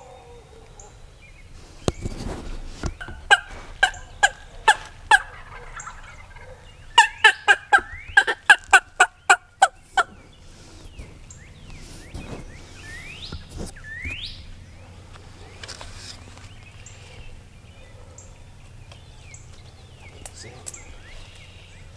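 Loud, close turkey yelps: a run of five evenly spaced notes about three seconds in, then a faster run of about a dozen starting around seven seconds. A knock and rustle come just before, and two short rising whistles follow a few seconds after.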